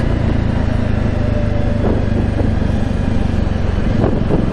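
Jawa motorcycle's 293 cc single-cylinder engine and exhaust running at a steady, low-pitched note, heard on board the moving bike, with road and wind noise.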